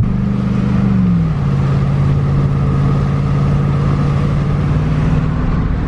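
2003 Chevy Silverado's V8 heard from inside the cab while driving, pulling hard at first. About a second in the engine note falls, then holds steady as the truck cruises.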